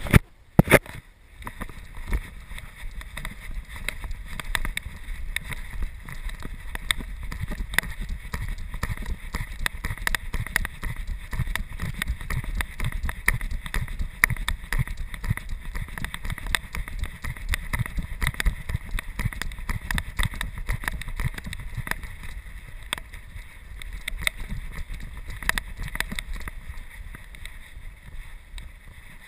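Movement noise from a GoPro 'doggie cam' worn by a golden retriever as the dog moves: a dense run of small clicks and knocks over a low rumble. A few sharp knocks at the very start as a hand handles the camera.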